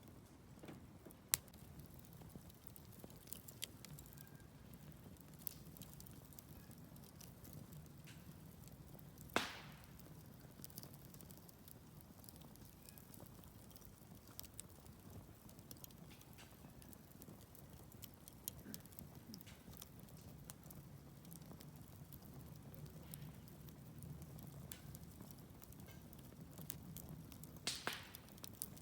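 Wood campfire crackling softly, with scattered small ticks and three louder pops, over a low rumble of burning.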